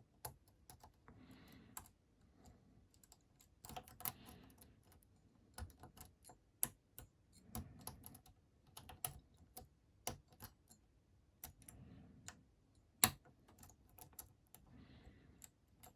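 Lock pick and tension wrench working the pins of a Master Lock 410 plastic-bodied safety padlock: faint, irregular light clicks and ticks as the pick probes and sets pins one by one.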